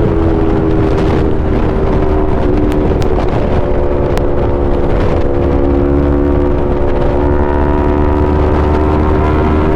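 Yamaha R3's parallel-twin engine running through an Akrapovic full exhaust system, held at fairly steady revs with a few small rises and dips in pitch.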